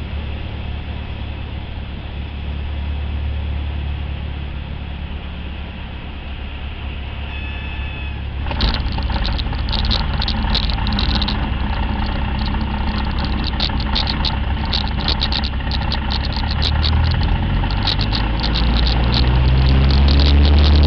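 Cessna 172's piston engine running at low power with a steady low hum. About eight seconds in, a louder rushing noise with crackles joins it. Near the end the engine's pitch climbs steadily as power comes up on the runway for the takeoff roll.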